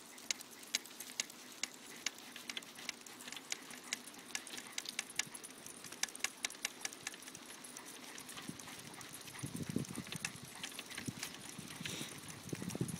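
Two trotting dogs' claws and paws clicking rapidly and irregularly on asphalt as they pull a dog cart, with low rumbling from about two-thirds of the way in.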